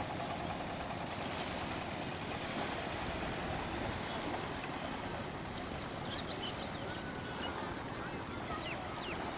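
Steady rushing noise of river water and wind, heard from a boat, with a few faint high chirps between about six and nine seconds in.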